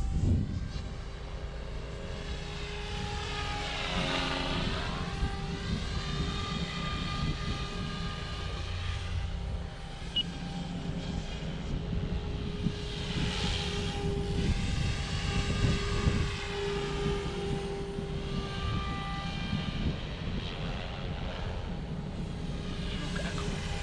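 OMPHOBBY M4 Max electric RC helicopter in flight at the higher headspeed, with a steady whine from the motor and main rotor blades. Its pitch sweeps up and down as it passes close, around four and again around thirteen seconds in.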